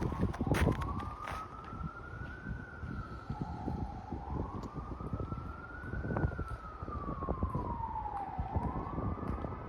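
An emergency vehicle siren wailing, its pitch rising and falling slowly over a few seconds per sweep, over footsteps crunching in snow.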